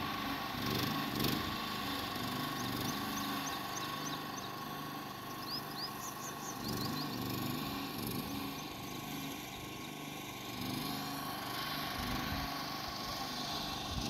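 An engine running steadily at a distance, with faint short bird chirps a few seconds in.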